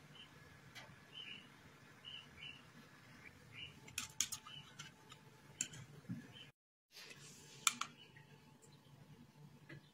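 A metal teaspoon stirring a thick paste in a small glass bowl, giving a few light clinks against the glass, the sharpest about four seconds in. Faint short bird chirps sound in the background.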